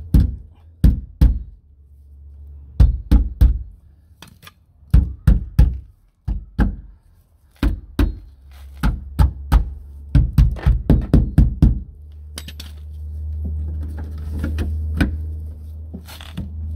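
Claw hammer knocking on the cut edge of a cat-door opening in an exterior door to bend the edge back. Single knocks and short groups come first, then a run of quick blows about three a second. Near the end a few softer knocks sound over a low steady rumble.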